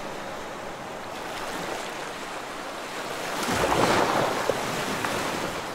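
Sea waves washing steadily, with one wave swelling louder for about a second, three and a half seconds in.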